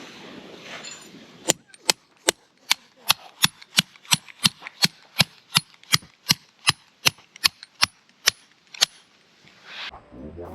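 A hammer striking a tent peg about twenty times in a steady rhythm, roughly two and a half blows a second, driving it into the ground.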